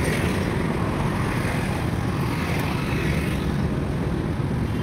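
Steady road traffic noise from cars and motorcycles passing on a busy road.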